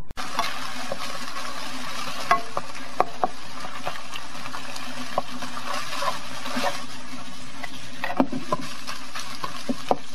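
Ground pork sizzling as it is stir-fried in a nonstick pan: a steady hiss, with a spatula scraping and clicking against the pan now and then.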